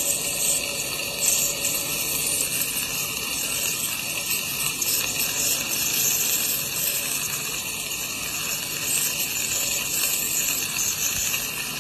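Ultrasonic dental scaler and suction running, a steady high hiss of water spray and air as the tip chips heavy tartar off a tooth.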